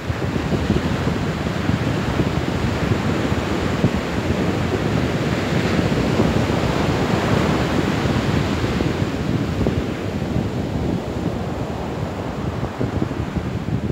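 Ocean surf breaking and washing up a sandy beach, mixed with wind buffeting the microphone. The hiss of the wash grows louder around the middle, then eases.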